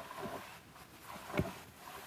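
Wooden canoe being pulled through swamp grass and reeds: irregular rustling and scraping of stems along the hull, with one louder knock a little past halfway.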